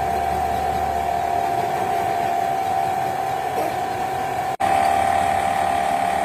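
A machine running with a steady high-pitched whine, one held tone, with a brief break about four and a half seconds in.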